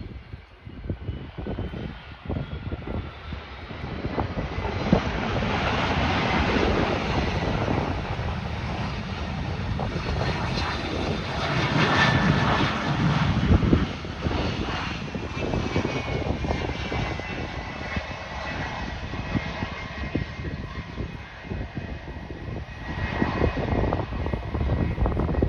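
Bombardier Challenger 300 business jet landing, its two Honeywell HTF7000 turbofans whining and rumbling. The noise builds to loud as it passes about twelve seconds in, then the whine falls in pitch as it moves away.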